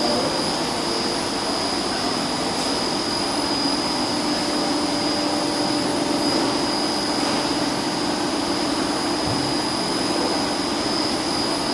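Reversible heat pump running steadily under test: an even rushing noise with a constant low hum and a thin high whine.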